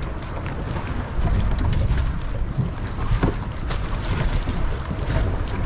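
Wind buffeting the microphone, a dense low rumble that gets louder about a second in, over water lapping around a small skiff. A few short clicks and splashes come about three to four seconds in as a hooked fish is brought to the landing net.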